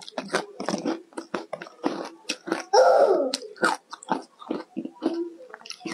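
Close-miked chewing and crunching of a mouthful of frozen ice with green topping: many short, sharp crunches. There is a short, louder sound around the middle.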